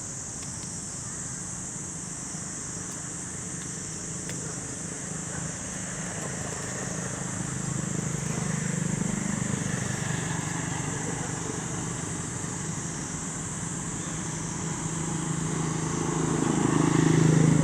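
Outdoor ambience with a motor vehicle engine passing, swelling about halfway through and louder again near the end, over a steady high hiss.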